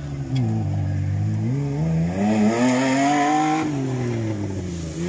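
Great Wall Haval H9 SUV engine revving hard under load in mud, its pitch climbing over about two seconds, then falling as the throttle eases off.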